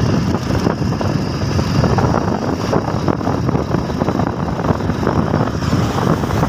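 Motorcycle riding at speed: a steady rumble of wind buffeting the microphone over the bike's running engine and road noise.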